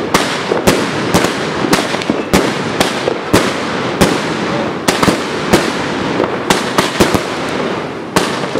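Aerial fireworks going off: a rapid, irregular string of sharp bangs, roughly two a second, over a continuous crackling hiss from the bursting stars.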